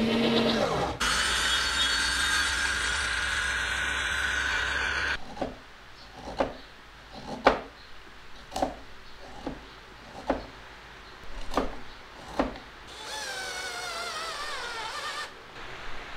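A power drill runs steadily for about four seconds. Then a wooden dowel is hammered into a hole with about eight sharp knocks, roughly one a second. Near the end there is a brief wavering whine.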